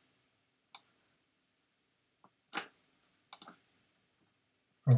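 Computer mouse clicking: a few short, separate clicks with quiet between.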